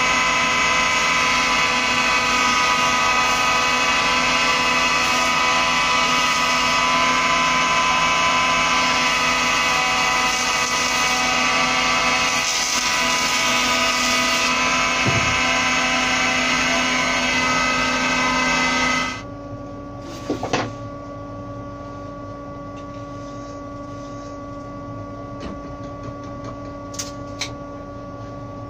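Surface planer (jointer) running loud and steady while planing the edge of a beech board fed along its fence. About 19 seconds in the sound drops suddenly to a much quieter steady machine hum, with a few light knocks.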